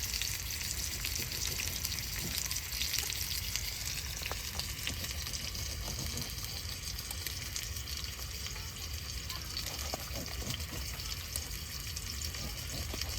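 Marbled beef sizzling steadily as it sears, a continuous crackle of many small spits and pops.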